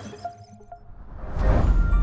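News channel's closing ident: a whoosh swells up about a second in and lands on a deep bass hit, which opens into a sustained musical chord.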